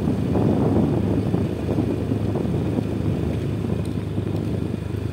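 A vehicle driving along a road: a steady engine drone and road noise, with wind rumbling on the microphone.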